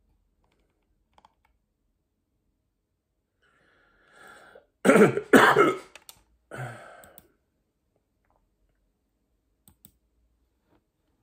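A person makes two loud, sudden throat sounds in quick succession, with a softer one about a second later. A few faint clicks follow near the end.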